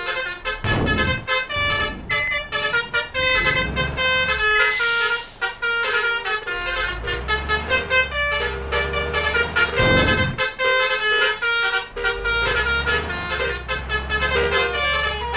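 Basuri multi-tone 'telolet' musical air horns on convoy vehicles, sounding without a break in quick, changing melodic notes over engine rumble. Vehicles pass with a swell of noise about a second in and again about two-thirds of the way through.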